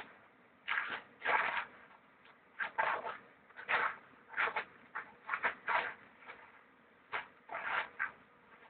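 Staff-spinning stick swishing through the air as it is spun fast: a run of short swishes at irregular intervals, many coming in quick pairs.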